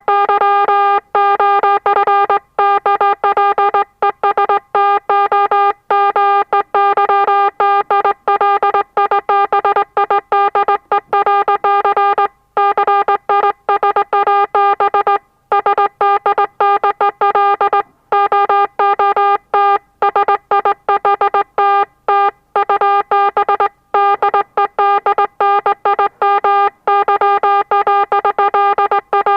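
Morse code message keyed on an oscillator at medium speed: a buzzy tone of one steady pitch, switched on and off in dots and dashes with short gaps between them.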